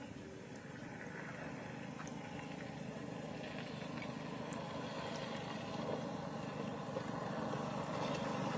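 A distant motor running steadily, its low hum slowly growing louder.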